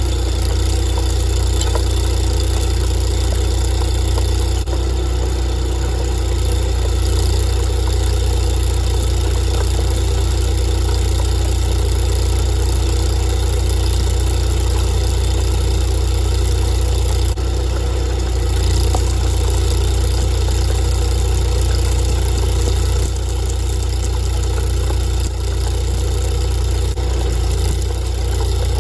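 An engine running steadily at idle, a constant low hum with a regular pulse that does not change.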